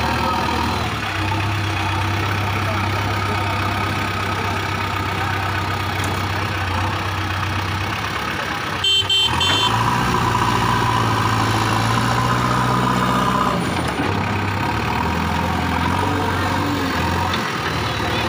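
JCB 3DX backhoe loader's diesel engine running steadily as the front loader works, a little louder for a few seconds past the middle. A short horn toot sounds about halfway through.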